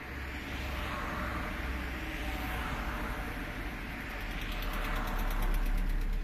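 Motor vehicle running nearby, engine rumble and road noise steady at first, then swelling louder near the end as it draws closer.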